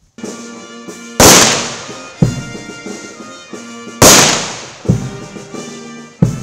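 Honour-guard rifle salute: two volleys of blank rifle fire about three seconds apart, each a sharp crack with a fading tail, with a few fainter cracks between them. Steady music plays underneath throughout.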